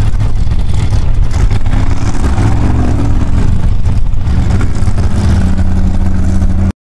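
Formula Offroad buggy's engine running loud under throttle while the car sits stuck on the gravel slope, rising in revs about two seconds in and settling again. The sound cuts off abruptly near the end.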